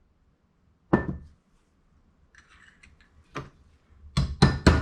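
Sharp knocks of a tool tapping on carburetor parts: one knock about a second in, another a little past three seconds, then a quick run of taps near the end, with faint rustling of parts being handled in between.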